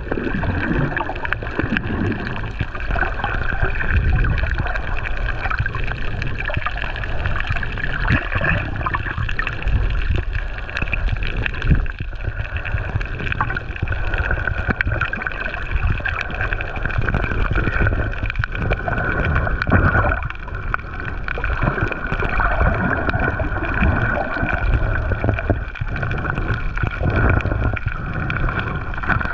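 Muffled underwater water noise picked up through a GoPro's waterproof housing: a steady wash with a low, surging rumble.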